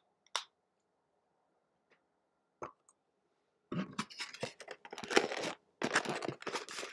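A couple of short sharp clicks, then from about halfway a few seconds of close crunching and crackling as takeout cheese curds with ranch are eaten and handled.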